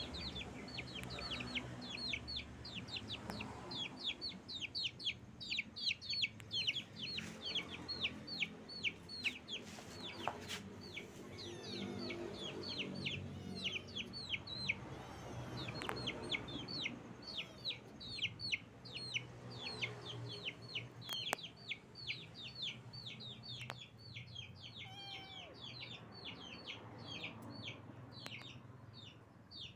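Chicken chicks peeping continuously: a rapid run of short, high cheeps, each falling in pitch, several a second.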